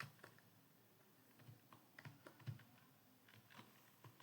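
Faint, irregular keystrokes on a computer keyboard as words are typed.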